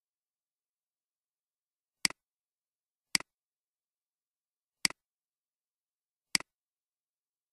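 Four sharp computer mouse clicks, each a quick press and release, with silence between them.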